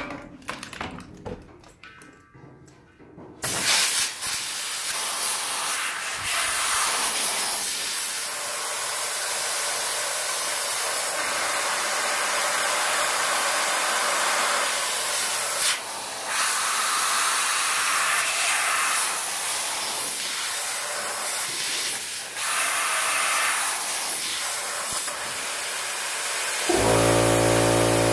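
Compressed air hissing steadily over a red-hot AEB-L knife blade clamped between quench plates: an air-assisted plate quench hardening the steel. It follows a few clanks of tongs and plates in the first few seconds. Near the end a motor starts up with a steady hum.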